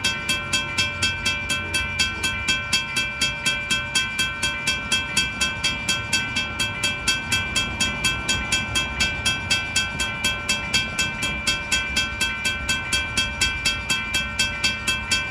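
Railroad grade-crossing bell ringing steadily at about three strikes a second, over a low rumble.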